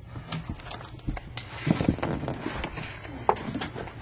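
Handling and movement noise: scattered rustling with light clicks and knocks, and a couple of low thumps a little under two seconds in.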